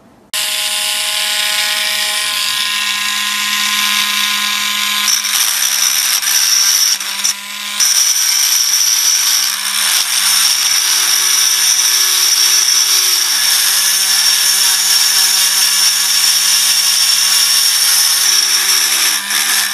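Dremel rotary tool with a stone grinding bit running at steady speed, grinding and widening the transfer ports inside a 47cc two-stroke pocket bike cylinder. The whine starts suddenly, dips briefly about seven seconds in, and cuts off just before the end.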